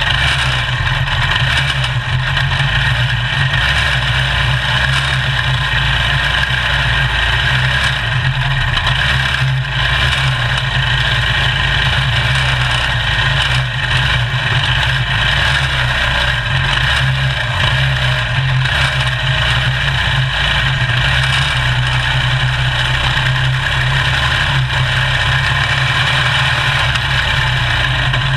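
Small single-cylinder racing engine of a caged race car, heard from on board, running hard and steady under racing load.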